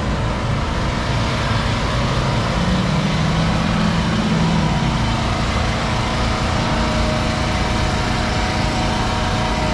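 An engine running steadily under a constant broad hiss, with a low hum that swells for a couple of seconds partway through.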